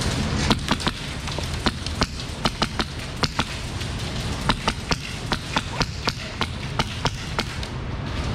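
Airsoft gunfire: a scattered run of single sharp shots, unevenly spaced at about three a second, over a steady low rumble.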